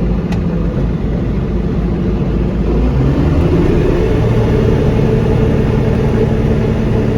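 Combine harvester engine running steadily, rising in pitch and getting a little louder about three seconds in, then holding there.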